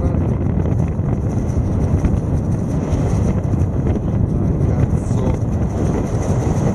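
Airflow buffeting the camera microphone during a parachute descent under an open canopy: a steady, loud, low rumble of wind noise.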